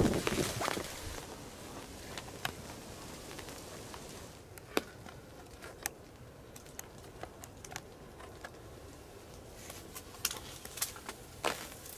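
A brief rustle at the very start, then sparse small clicks and ticks scattered over a faint steady hiss, with a sharper tick about five seconds in and a cluster of them near the end.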